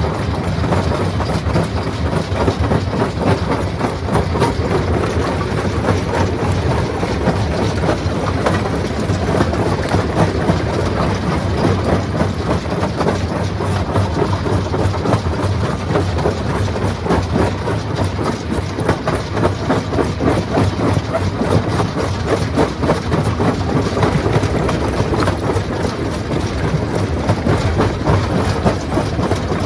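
Rock crushing machine running, crushing stone: a steady low drone under a dense, continuous clatter.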